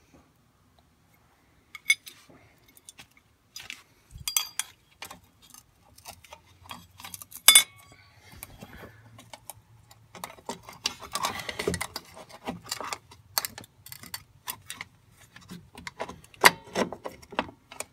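Irregular metallic clicks and clinks of rear drum brake shoes and hardware being handled and fitted onto the backing plate, with one sharp click about seven and a half seconds in and a busier clatter a few seconds later.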